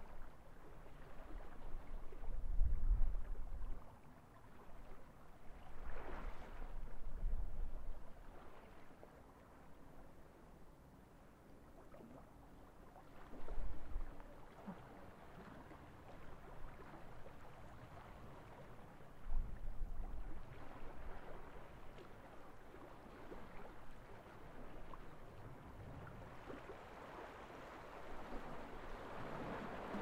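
Small sea waves washing onto a gravel beach, rising and falling in slow surges with a low rumble as each one breaks. The loudest surges come about three seconds in and again right at the end.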